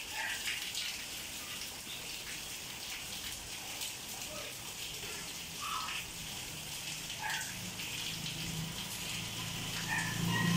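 Steady rain falling, an even hiss. Over the last few seconds the low hum of a vehicle engine comes in and grows louder.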